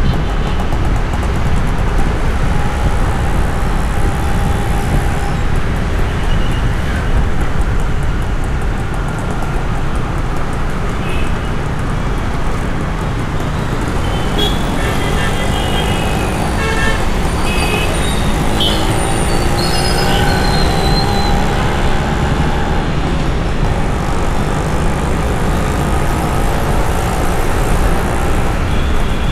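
City road traffic: a steady rumble of engines and tyres, with short horn toots, several of them about halfway through.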